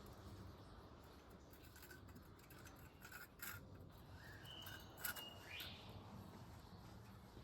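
Near silence: a few faint clicks and light scrapes, with a brief thin tone about four and a half seconds in.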